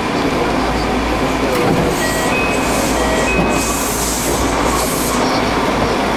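Inside a linear-motor subway car: a steady running rumble and rail noise. Faint high squealing tones and bursts of hiss come and go in the middle.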